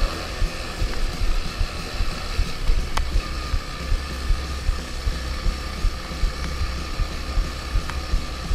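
Three-wheeler ATC's small single-cylinder engine running at a fairly steady speed while riding on dirt, with wind buffeting the microphone.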